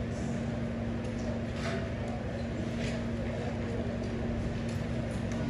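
Steady low electrical hum over room noise, with faint shuffling and handling sounds as a wooden pulpit is carried and set into place.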